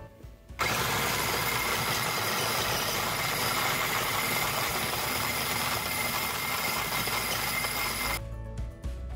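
Black+Decker electric mini chopper's motor running with its blade chopping beetroot in the bowl: a steady whine over a rough whirr. It starts suddenly about half a second in and cuts off near the end.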